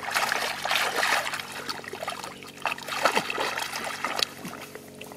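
Splashing and sloshing in shallow muddy water as bare hands grab at thrashing catfish, heaviest in the first second or so and again about three seconds in, then dying down near the end.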